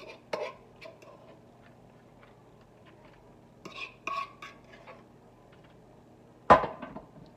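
A fork scraping and clinking against a skillet as pulled chicken is pushed out of it, in a few short scrapes, then one loud sharp knock about six and a half seconds in.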